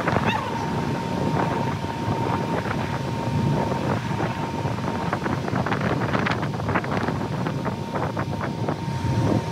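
Wind buffeting the microphone on the deck of a moving car ferry, over the rush of the wake along the hull and a low steady rumble from the ship, with a thin steady tone. Sharper crackles of wind or spray come more often in the second half.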